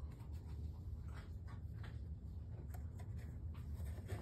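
Faint scratchy rustling with scattered light ticks: a cat rubbing against cardboard boxes and stepping on a tile floor.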